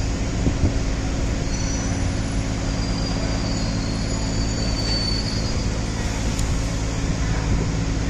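Construction cradle's hoist running: a steady mechanical hum and rumble, with faint high squeals through the middle.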